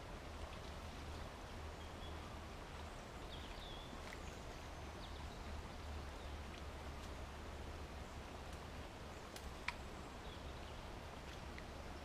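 Outdoor woodland background: a steady low hiss and hum with a few faint bird chirps, and one sharp click about ten seconds in.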